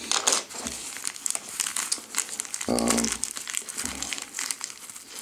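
Crinkling and rustling as a small nylon mesh pouch and plastic-wrapped kit items are handled, in many short, quick crackles. A brief hum of voice comes about halfway through.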